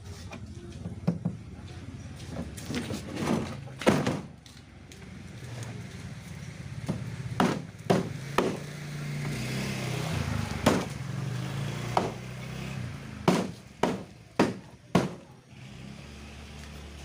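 Irregular sharp knocks and clanks as a single-door refrigerator's cabinet is struck and pried apart, about a dozen hits at uneven intervals. A low engine drone runs underneath, louder around the middle.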